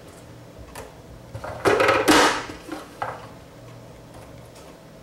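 Plastic knocks and clatter from a Vidalia Chop Wizard vegetable chopper while celery chunks are loaded onto its cutting grid: two loud knocks close together about two seconds in, a lighter one about a second later.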